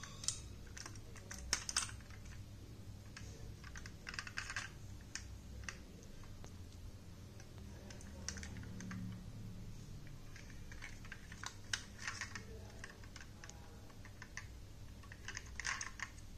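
Hands handling a small diecast metal toy car: scattered light clicks and taps of the body, plastic parts and wheels, coming in several short clusters over a faint low hum.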